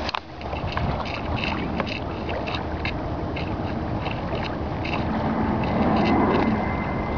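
Inflatable boat under way over choppy water: water slapping against the hull and wind on the microphone, over a steady low drone.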